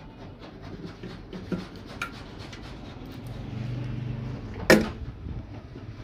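Hand tools and fingers working on the metal insides of a microwave oven: a run of small clicks, taps and scrapes from a screwdriver and wire connectors at the magnetron. A low hum lasts about a second in the middle, and one sharp, loud click comes a little before the end.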